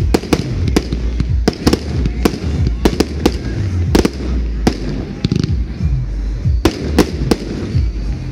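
Pyro Passion 'Ice House Street' fireworks compound battery firing: a rapid, irregular string of sharp bangs as aerial effects burst, about two or three a second.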